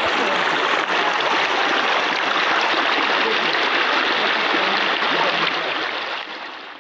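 Waterfall's rushing water, a steady even roar that fades down near the end.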